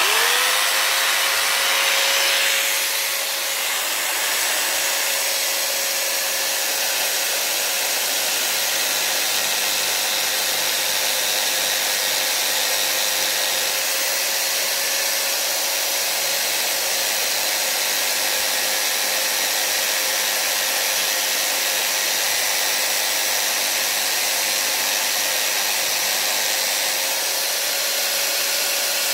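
Corded electric drill fitted with a small carving bit, switched on and spinning up quickly, then running steadily at full speed with a constant motor whine. The bit grinds at the wood for the first few seconds.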